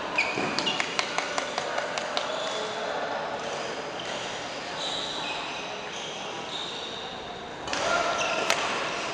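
Badminton doubles play on an indoor court: a quick run of sharp taps in the first two seconds, short high squeaks of court shoes on the floor through the middle, and a louder burst of sound near the end, all in a reverberant hall.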